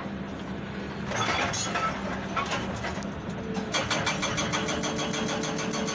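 Excavator-mounted hydraulic breaker on rebar-laced concrete, heard from inside the cab over the steady hum of the diesel engine. Scattered clanks come in the first few seconds. From about three and a half seconds in, the breaker hammers in fast, even blows, several a second.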